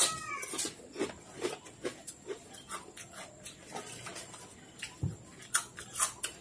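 Close-up crunching and chewing of potato chips and wafers: an irregular run of short, sharp crunches with mouth noises between them.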